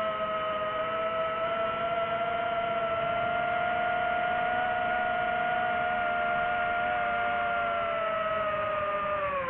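DJI FPV drone's motors and propellers whining steadily in flight, the pitch holding level and then dropping near the end as the throttle eases off.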